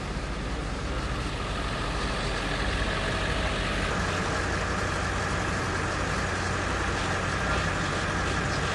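Steady rumble of an idling vehicle engine, with a constant low hum.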